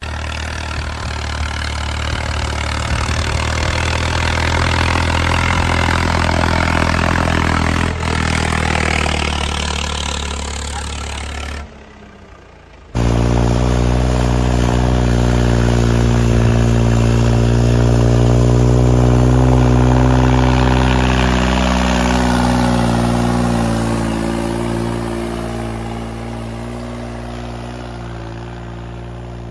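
Diesel tractor engines running under load while pulling disc harrows: first a red Swaraj tractor running steadily. It cuts off about twelve seconds in, and after a brief near-silent gap a second tractor engine comes in, growing louder before fading away near the end.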